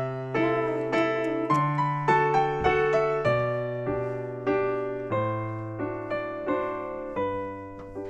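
Background piano music: a slow melody of single struck notes over low bass notes that change every couple of seconds.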